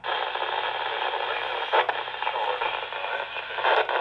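TYT UV-8000D handheld transceiver's speaker playing a weak FM signal from a distant repeater: steady hiss and static with little intelligible speech, and a few brief crackles. The signal drops out briefly at the very start.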